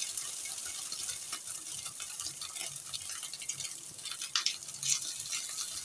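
Shredded boiled chicken sizzling in hot oil in a stainless steel frying pan, with scattered clicks and scrapes of a spatula pushing the chicken out of a glass bowl; the sharpest clicks come about four and five seconds in.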